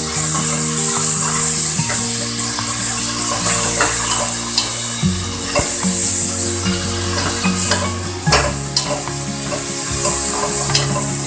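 Pork pieces sizzling as they fry in oil in a stainless steel pot, with tongs clicking against the metal now and then as the meat is turned. Background music with a stepping bass line plays underneath.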